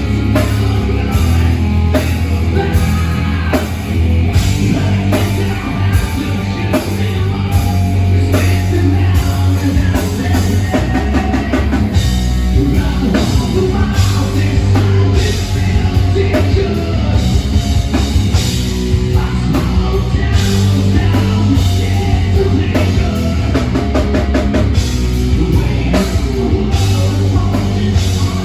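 Live hard rock band playing loud: distorted guitars, bass and a pounding drum kit, with sung vocals, as heard by a phone in the crowd.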